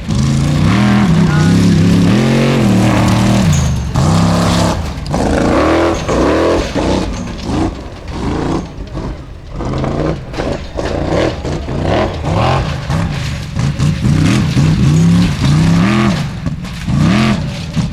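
Formula Offroad buggy's engine revving hard, its pitch swinging up and down in quick repeated surges as the driver works the throttle.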